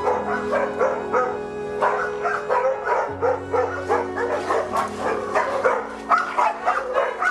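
Many dogs barking and yipping at once in quick, overlapping calls, over background music with long held notes.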